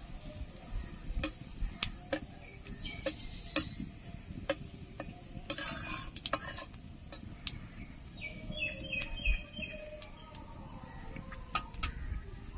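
Metal spatula tapping and scraping in a cooking pot while whole spices fry in oil, with a short hiss about six seconds in. A bird chirps four or five times in quick succession a little past the middle.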